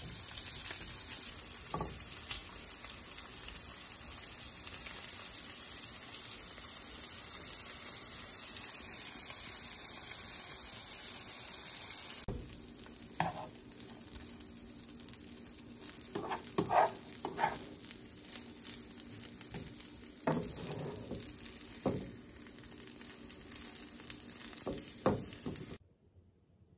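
Bacon and sliced mushrooms sizzling in a nonstick frying pan, a steady hiss. About halfway through it changes to kimchi fried rice frying more quietly, with a plastic spoon scraping and turning the rice around the pan in short strokes. It cuts to near silence in the last second.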